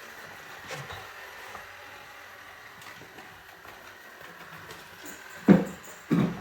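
Roomba robot vacuum running with a steady whir, then two loud knocks about half a second apart near the end.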